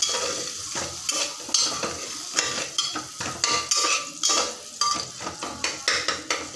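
A spoon stirring and scraping onions in a cooking pan, a quick run of scrapes and knocks over a light sizzle. The onions are being softened on a low flame rather than fried.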